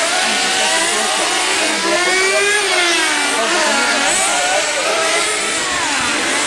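Several nitro-engined 1:10 on-road RC racing cars running together, their high whining engines rising and falling in pitch as they accelerate and lift off round the corners, the notes overlapping and crossing.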